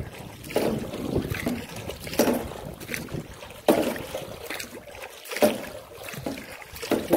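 Rowing a small boat with a wooden oar: strokes swishing and splashing in the water, one about every second and a half.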